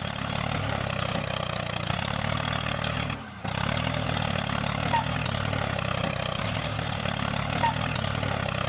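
Steady tractor engine sound running without a break in pace, with a short dropout just over three seconds in.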